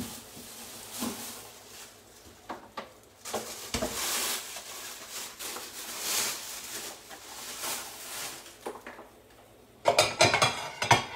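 Kitchen handling noises: an uneven rustling hiss with a few knocks, then a burst of plates and dishes clattering against each other about ten seconds in.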